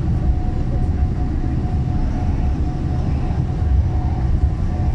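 Steady low rumble heard inside the cabin of a Boeing 777-300ER taxiing, its engines at low taxi thrust, with a faint steady tone running through it.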